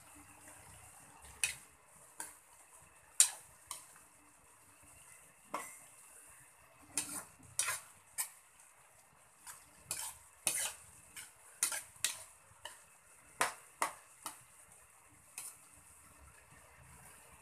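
Metal ladle stirring chopped jackfruit in coconut milk in a wok, knocking and scraping against the pan in irregular sharp clinks, over a faint steady hiss.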